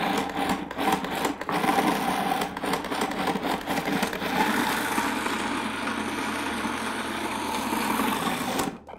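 Countertop food processor motor running, its blades chopping a load of onion, carrot, fennel, garlic and chili into soffritto. It runs with a few short breaks in the first second and a half, then steadily, and cuts off suddenly near the end.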